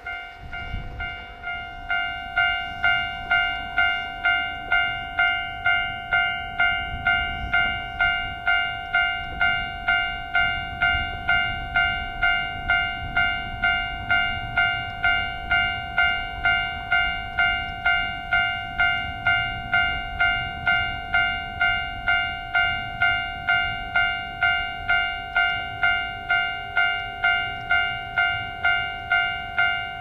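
Railway level-crossing bell ringing in an even, rapid beat of roughly two strikes a second, the same bell-like tone on every strike, starting about two seconds in: the warning for an approaching train. A low rumble of wind runs underneath.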